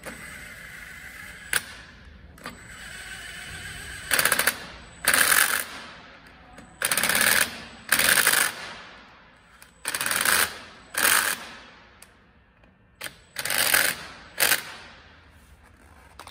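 Cordless impact driver hammering in about eight short bursts, each under a second, as it drives the bolts of a power wheelchair's rear wheel.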